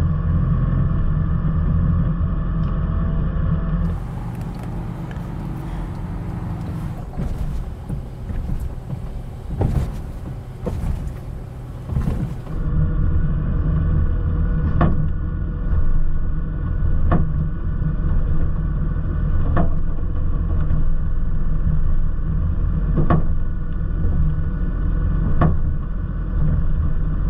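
A car driving, picked up by a camera on its hood: a steady low rumble of road and wind noise. In the later part a sharp tick recurs every two to three seconds.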